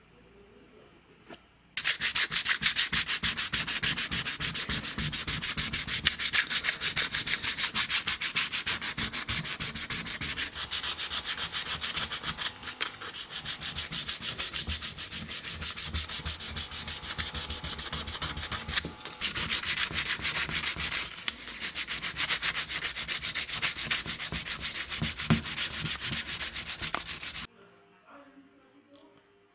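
Sandpaper rubbed by hand in quick back-and-forth strokes over hardened filler on a small metal vise part. It starts about two seconds in, breaks off briefly three times, and stops shortly before the end.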